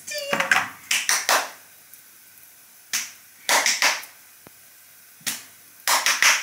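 Several short breathy bursts of hushed laughter from a woman and a toddler, with quiet gaps between them and one faint click about four and a half seconds in.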